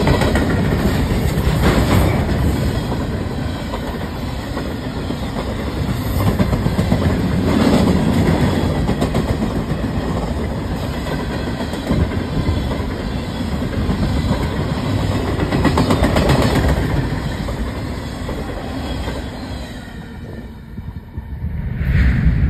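Freight train of covered grain hopper cars rolling past, with steady rail noise and wheels clacking over rail joints every few seconds. The sound drops away near the end as the last cars clear, then comes a brief louder rush.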